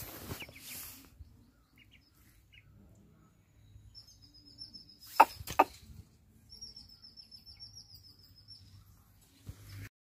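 A small bird trilling, a high rapid run of notes heard twice, in the middle and again a little later. Two sharp knocks just after the middle are the loudest sounds, with a brief rustle of handling near the start.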